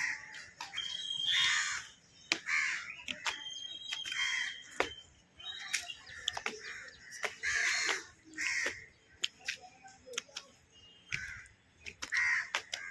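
Crows cawing again and again, harsh calls coming every second or two, with scattered short sharp clicks in between.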